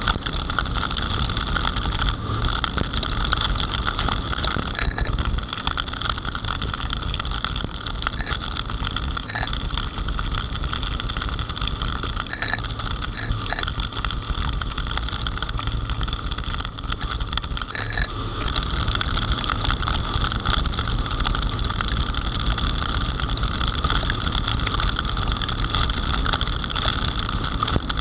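A car driving through heavy rain on a wet road. Steady noise of rain, tyre spray and wind buffeting the microphone, with a low engine and road rumble underneath.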